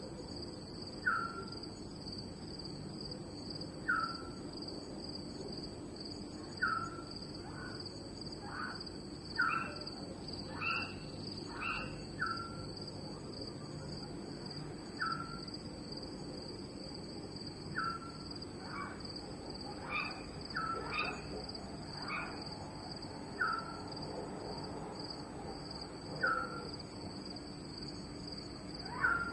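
Night ambience of crickets trilling steadily, with another animal's short falling call repeating about every three seconds and scattered chirps between.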